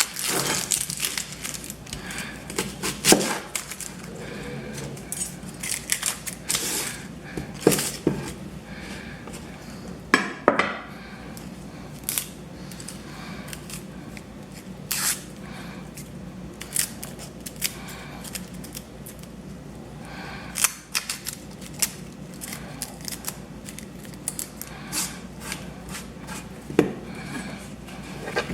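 Kitchen knife cutting an onion on a cutting board: irregular knocks of the blade against the board, with a few louder strikes.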